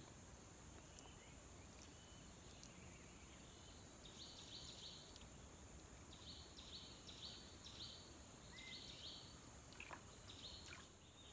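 Quiet riverside ambience: a steady high insect-like hum, with runs of short, high chirps repeated in small groups from about four seconds in.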